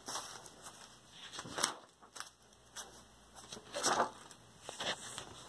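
Paper pages of a spiral-bound sketchbook being turned and handled: several short rustles and swishes, the loudest about four seconds in.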